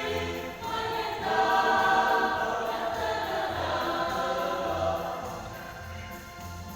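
Voices singing a slow melody of long held notes over a low pulsing accompaniment, in a choir-like sound; it grows quieter over the last second or two.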